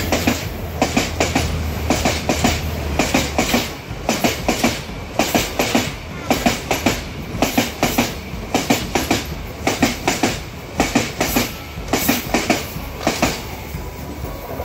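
Passenger coaches of an express hauled by a Class M11 diesel locomotive rolling past close by, with a steady clickety-clack of wheels over the rail joints in quick repeated groups. The locomotive's low engine hum fades over the first three seconds, and the clicking dies away near the end as the last coach goes by.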